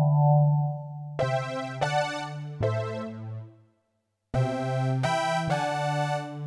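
Casio CTK-800 keyboard playing chords on its preset voices: a held mellow chord, then about a second in a run of bright, sharply struck chords with a piano-like attack, three in a row, a short gap, and three more.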